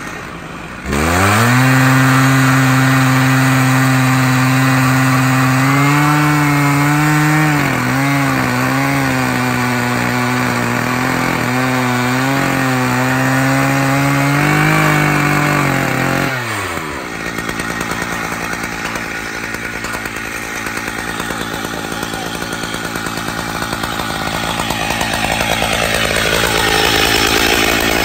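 Stihl MS880 two-stroke chainsaw on an Alaskan chainsaw mill snapping up to full throttle about a second in and running flat out through a spalted beech log. Its pitch dips and wavers as the chain takes load in the cut. About two-thirds of the way through, the revs fall away and a rougher, fluttering running sound carries on.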